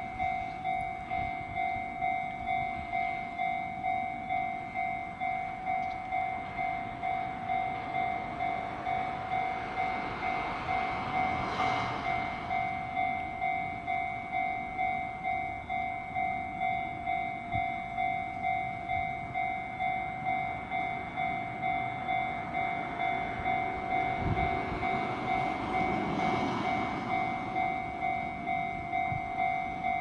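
Japanese railroad crossing's electronic warning bell ringing: a steady two-tone ding repeating a little faster than once a second, sounding while the crossing is closed for a train. Twice, a rumbling rush of noise swells and fades under it, about a third of the way in and again past the three-quarter mark.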